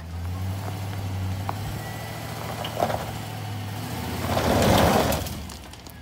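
A motor running with a steady low hum while a pickup truck is hauled onto a flatbed trailer. About four seconds in, a louder rushing noise swells for about a second and fades.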